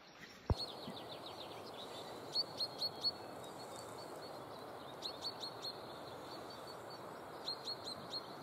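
A small bird calling: four runs of quick, high, downward-sliding chirps a couple of seconds apart, over a steady rushing background. A single sharp click comes about half a second in.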